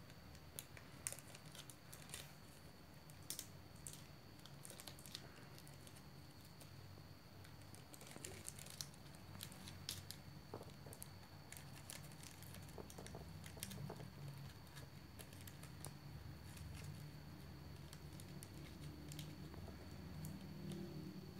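Faint crinkling of a thin plastic bag being twisted and tied by hand, in scattered small rustles and ticks. A faint steady high tone runs underneath.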